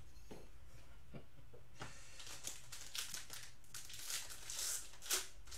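Foil wrapper of a trading card pack crinkling as it is handled and opened by hand. The crackles are irregular, starting about two seconds in, with a sharper crackle near the end.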